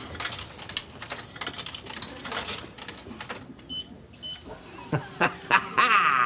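Snack vending machine being operated: small clicks of coins and buttons, two short keypad beeps a little before the middle, a few knocks, then the machine's motor whirring near the end as the spiral coil turns to drop the snack.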